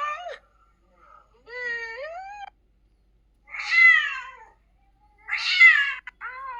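AI-generated 'cat crying' sound effect: a series of about five plaintive cat meows with short gaps, some rising and some falling in pitch.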